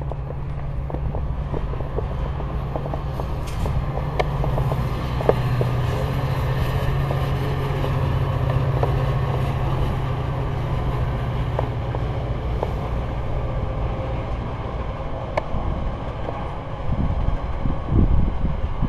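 Metra commuter train of bilevel coaches rolling past close by: a steady low rumble with scattered clicks and knocks from the wheels and running gear, the knocks heavier near the end.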